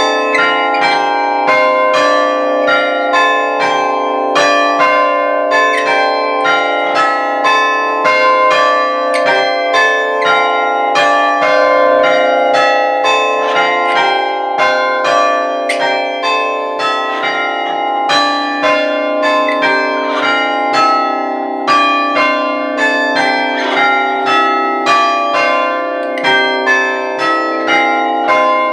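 Six church bells struck one after another by the hammers of an Ellacombe chiming apparatus, ringing in an even, unbroken rhythm. Each stroke overlaps the ringing of the ones before it.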